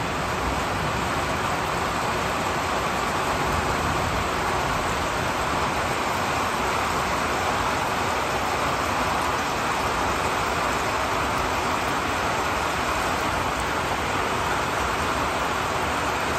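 Heavy rain falling steadily on the trees and foliage, an even, unbroken hiss.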